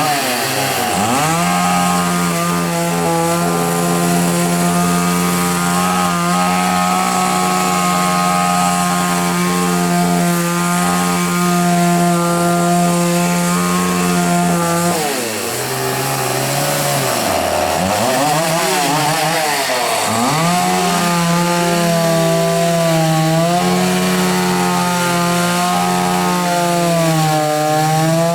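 Chainsaw engine running at high revs. Its pitch dips and picks back up several times about halfway through, and once near the start.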